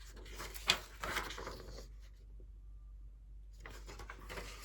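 Paper pages being handled and turned, rustling, with a sharp tap about a second in and a quieter pause in the middle.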